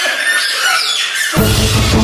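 High, wavering squeaks from squeaky toys tied to the players' feet, then background music with a heavy bass beat comes in about a second and a half in.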